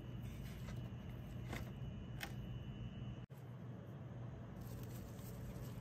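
Faint handling of a plastic plant pot and potting soil: a few light clicks over a steady low hum.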